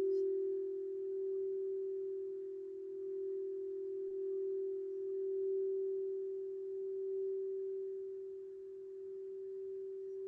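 Singing bowl sounding one steady, pure low tone that slowly swells and fades in loudness.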